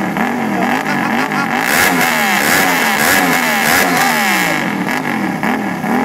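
Suzuki motorcycle engine running with no exhaust fitted, very loud and raspy. The throttle is blipped over and over, about twice a second, so the revs climb and drop in quick succession.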